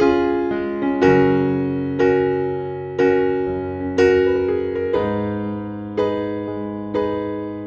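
Background music on a piano-like keyboard, slow and gentle, with chords struck about once a second that each fade before the next.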